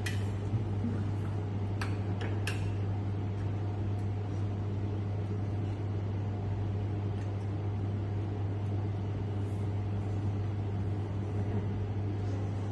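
A steady low hum of room machinery, with a few light clicks about two seconds in from items being handled on a metal instrument tray.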